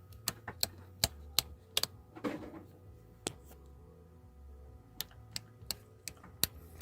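RV dashboard toggle switches being flipped: a run of sharp clicks in two clusters with a single click between them.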